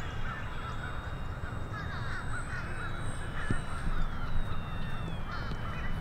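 Distant whine of the E-Flite UMX Turbo Timber Evolution's electric motor and propeller in flight, stepping down in pitch twice in the second half as the throttle is eased. Birds call and chatter throughout.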